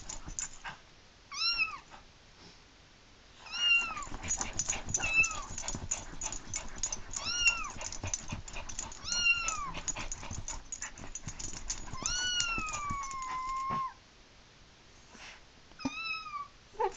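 Cell-phone ringtone of a kitten mewing: seven short rising-and-falling mews, the sixth long and drawn out, heard over rapid clicking and scratching through the middle of the sequence.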